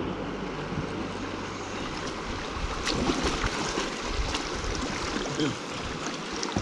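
River water flowing and splashing around the kayaks, with a few sharper splashes about three seconds in and again near the end.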